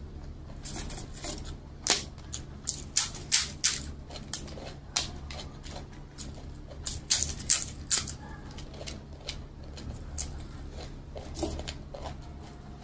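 Crisp papad crackling and crunching as it is crushed into rice by hand and chewed, close to the microphone: irregular sharp snaps in clusters, loudest about two to four seconds in and again about seven to eight seconds in.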